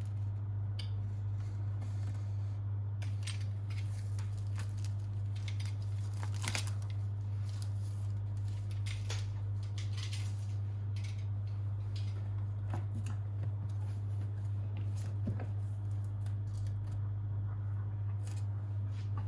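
Packaging of a drone box being cut and handled by hand: scattered snips, crinkles and rustles. A steady low hum runs underneath.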